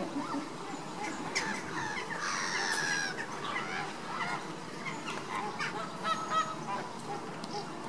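Flock of Caribbean flamingos honking: many short overlapping calls from several birds, in two busy bouts, about a second and a half in and again past the middle.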